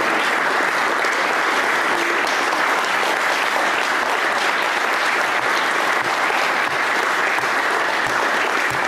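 A crowd applauding: steady, unbroken clapping from many hands.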